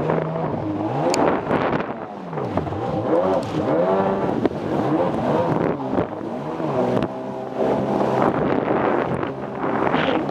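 Jet ski engine running with its whine rising and falling again and again as the throttle is opened and eased.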